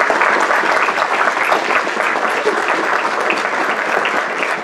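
Crowd applauding steadily, many hands clapping, the applause slowly dying down.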